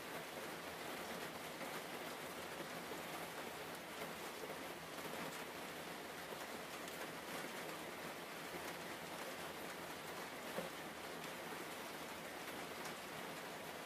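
Steady rain-like hiss with faint scattered ticks and one slightly louder tick about ten and a half seconds in.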